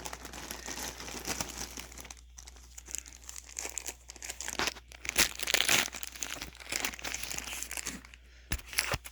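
Packaging crinkling and rustling as accessories are pulled out of a bag, loudest about halfway through, with two short knocks near the end.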